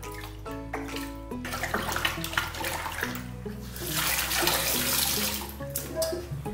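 Water sloshing and splashing in a stainless steel bowl as hands swish through salted water around gluten dough, loudest about four to five seconds in.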